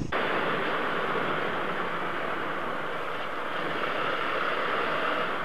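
Steady rushing wind noise on a motorcycle's onboard camera microphone while the bike is riding, with no clear engine note.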